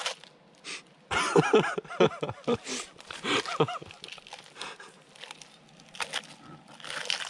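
People laughing in a short run of pulsing bursts. Near the end come crackles and scrapes of tongs and a knife breaking into charred, burnt chicken skin in a cast-iron Dutch oven.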